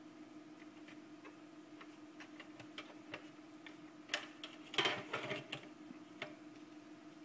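Light clicks and taps of small hardware parts being handled while assembling an Angel POS AP-3000 terminal, with a brief clatter about five seconds in, over a steady low hum.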